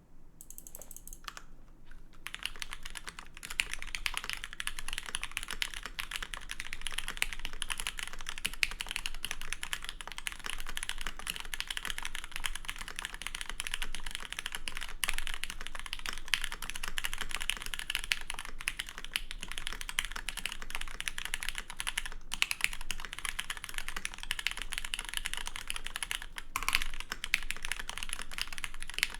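Continuous fast typing on a Static Archives HeartbreakTKL custom mechanical keyboard: lubed, filmed Cherry MX Teal linear switches (Hyperglide Black housings, Tealio stems) in an aluminum plate, capped with GMK keycaps. The keystrokes come dense and quick from about two seconds in, with a couple of short breaks near the end.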